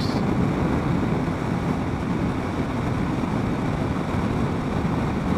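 Sport motorcycle cruising at steady freeway speed, heard from a helmet-mounted camera: engine, road and wind noise in one even, unchanging drone.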